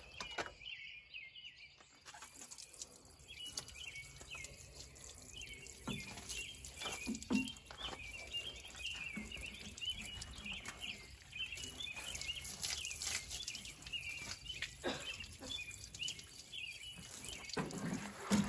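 Small birds chirping and singing continuously, with water from a watering can splashing and dripping onto the skid steer's steel bodywork as muriatic acid is rinsed off.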